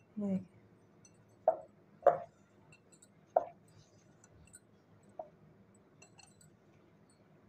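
Hands kneading a stiff flour dough in a glass bowl, giving four short, sharp knocks and clinks against the glass, spaced a second or more apart with quiet stretches between.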